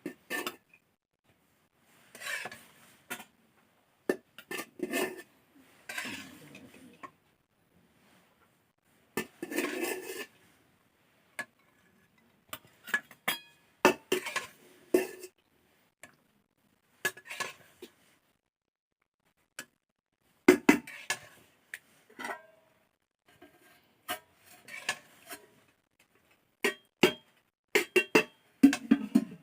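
Dishes and utensils clinking and scraping in short, irregular bursts, with quiet gaps between them.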